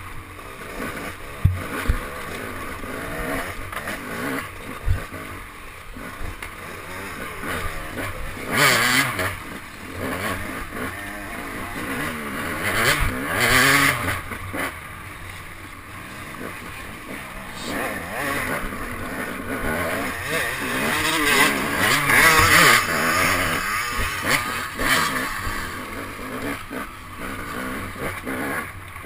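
Off-road dirt bike engine being ridden hard, revving up and down as the throttle opens and closes over rough trail, with louder surges of rushing noise every several seconds.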